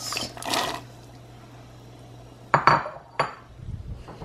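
Chopped carrots tumbling off a ceramic bowl and splashing into a pot of broth, then a few sharp clinks of dishes about two and a half seconds in.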